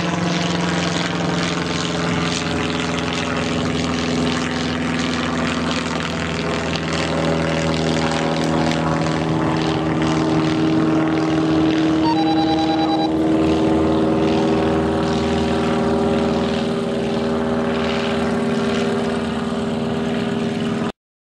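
Kolb Kolbra ultralight's engine and propeller running steadily as the plane taxis on the runway toward the listener. The engine note shifts in pitch a couple of times as the throttle changes, and the sound cuts off suddenly near the end.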